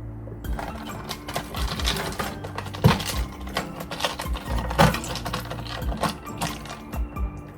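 Background music with steady low notes, under a rapid, irregular clattering of clicks and knocks.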